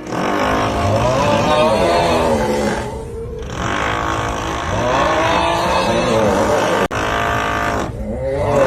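A man's long, wavering snore-like groan, "uuuuugghhh", over a steady drilling noise, repeated as a loop. The drilling drops out briefly about three seconds in and again near the end, and there is a single sharp click near seven seconds.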